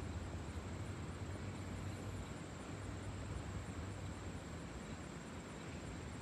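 Boeing 747-400 freighter passing high overhead: the steady, distant low rumble of its four jet engines.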